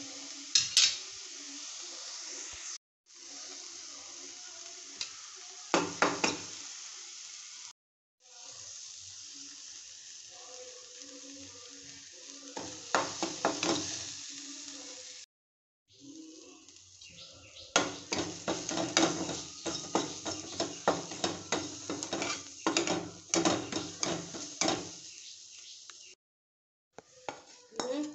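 Onions and green chillies frying with a steady sizzle in an aluminium kadai, while a metal spatula scrapes and knocks against the pan as they are stirred, the knocks coming thick and fast in the second half. The sound breaks off into short silences four times, and near the end a wire whisk clinks quickly in a steel bowl of beaten egg.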